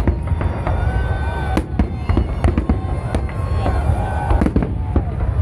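Large aerial fireworks display: loud, rapid, irregular bangs of shells bursting overhead over a continuous low rumble.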